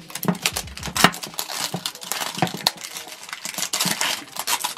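Clear plastic shrink-wrap being peeled and torn off a cardboard toy box, crinkling and crackling steadily throughout.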